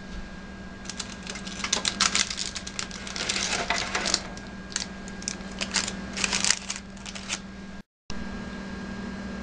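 Aluminium foil and parchment paper crinkling and crackling in quick irregular runs as a baked cake is unwrapped and lifted out of its foil casing. The crinkling stops near the end, leaving a steady low hum.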